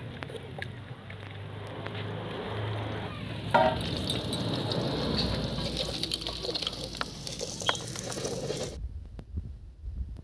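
Cooking sizzle with small crackles and handling noises, from a wok on a wood-fired clay stove. The sound changes sharply about a third of the way in and cuts off abruptly near the end, leaving a few low thumps.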